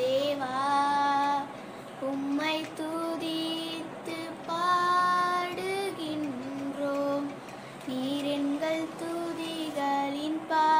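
A young girl singing a worship song, holding several notes for about a second.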